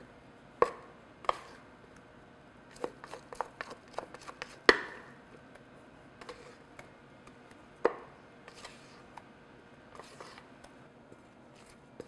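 Spatula scraping thick cake batter out of a glass mixing bowl onto a sheet pan: a scattered series of sharp taps and knocks as it strikes the bowl, with a quick run of taps in the middle and the loudest knock a little before halfway.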